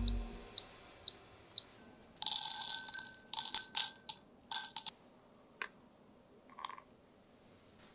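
Roasted coffee beans poured into a glass jar, rattling and clinking against the glass for about three seconds, starting about two seconds in. A few faint, evenly spaced ticks come before it.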